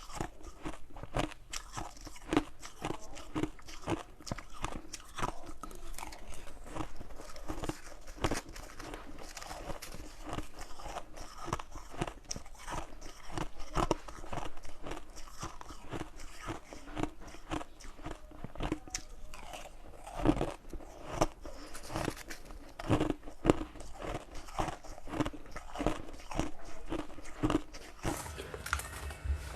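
Close-up crunching, as in chewing: a dense, irregular run of crisp crunches and clicks, several a second.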